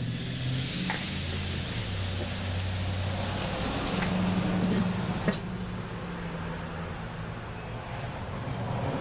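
Swordfish steak sizzling as it is laid on the hot, cooking-spray-coated grate of a Weber Jumbo Joe charcoal grill; the hiss dies down about four seconds in as the lid goes on, with a single sharp click a second later. A low steady hum runs underneath.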